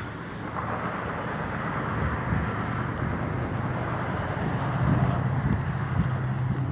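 Outdoor noise with a motor vehicle's engine hum growing louder over the last couple of seconds as it approaches.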